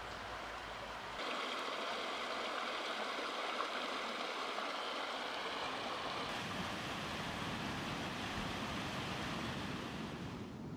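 Mountain stream running over rocks in a steady rush of water. Its sound shifts about a second in, growing brighter and a little louder, and shifts again about six seconds in, gaining more low rumble.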